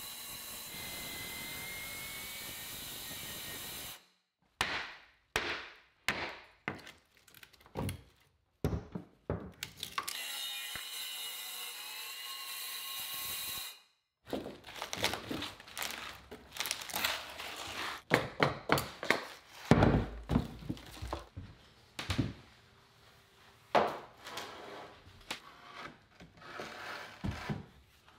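Milwaukee cordless circular saw cutting through the rotten wooden sole plate in two runs of a few seconds each, the second about ten seconds in. Between and after the cuts come sharp knocks, thunks and scraping of wood being worked loose and moved.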